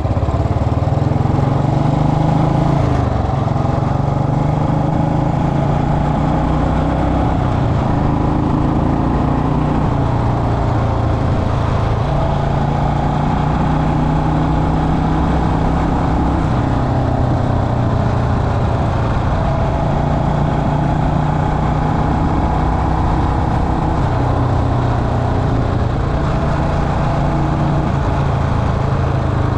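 Royal Enfield Bullet Electra's single-cylinder engine running under way, its pitch stepping to a new steady level about three seconds in and again twice later as engine speed changes.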